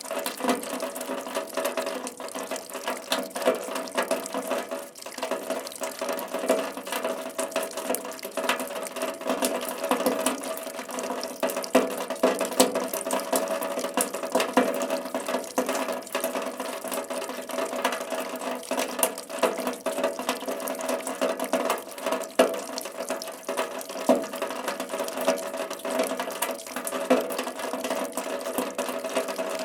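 Steady rain: a dense, irregular patter of individual drops over a constant wash of falling water.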